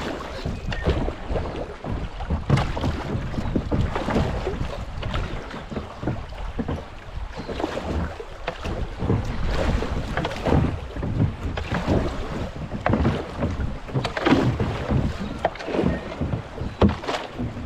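Kayak going down a shallow creek: irregular splashes and knocks of paddle and water, with wind buffeting the microphone as a steady low rumble.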